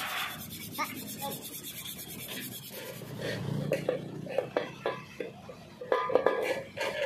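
Hand scrubbing over the bare metal side panel of a 1977 Vespa scooter, first with sandpaper and then with a rag: a rasping rub in irregular back-and-forth strokes. The strokes grow louder and quicker in the second half.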